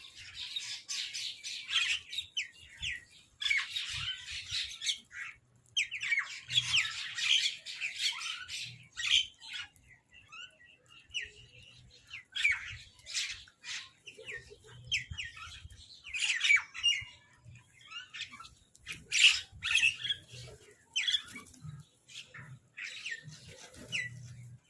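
Crows squabbling over food: many harsh, overlapping squawks and caws coming in dense clusters, with short lulls between them.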